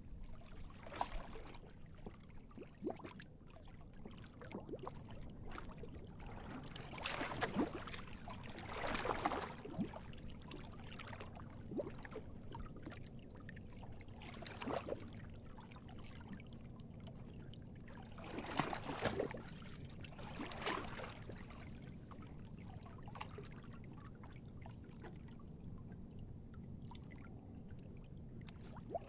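Water sloshing and splashing in irregular surges over a steady low rumble, with a few louder splashes coming in pairs.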